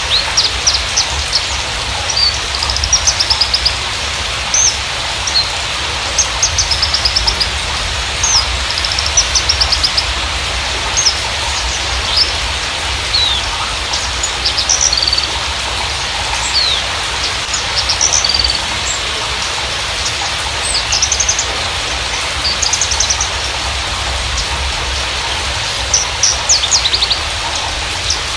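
Javan bushlark (Mirafra javanica parva) singing a lure song. It is a busy run of short high chirps, quick down-slurred notes and fast rattling trills with short gaps between phrases, over a steady hiss like rain.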